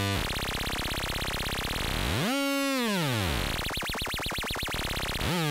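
Korg RK-100S 2 keytar playing a synthesizer patch: a dense, rapidly pulsing tone, then about two seconds in a note that swoops up and back down in pitch, then a tone wobbling fast in pitch, about five times a second.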